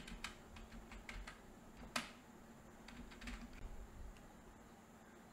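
Faint typing on a computer keyboard: a quick run of keystrokes over the first three and a half seconds, with one sharper click about two seconds in, then it goes quiet.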